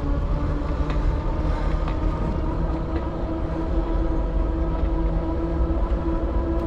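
Fat-tire electric bike riding at a steady speed on VeeMoto E Huntsman 20 by 4 inch tires: a steady motor whine over a continuous low rumble of tires and wind.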